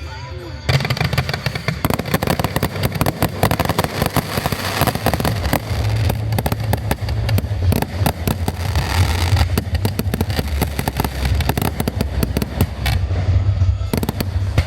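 Aerial fireworks bursting in a dense, rapid barrage of bangs and crackles, starting about a second in.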